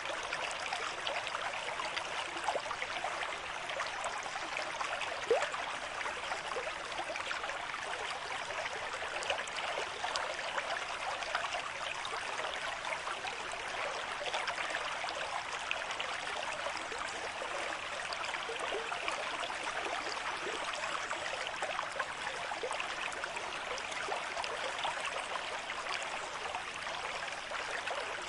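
A stream flowing steadily at a moderate rate, a continuous rushing with fine splashing and gurgling.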